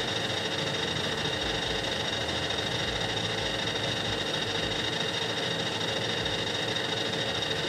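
Metal lathe running and cutting a metal cylinder: a steady machine hum with a thin high whine, unchanging throughout.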